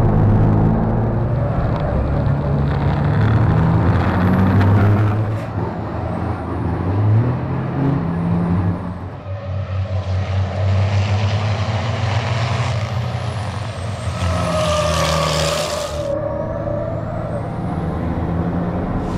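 Turbocharged diesel engines of circuit race trucks running hard, a heavy low drone that steps up in pitch as the truck pulls through the gears. About halfway through, a loud hiss of air rises over the engines for several seconds and cuts off suddenly.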